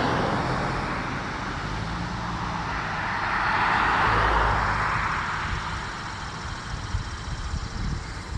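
Road traffic going by: the tyre and engine noise of a passing car is fading at the start, and a second car swells up and passes about four seconds in before the noise eases off.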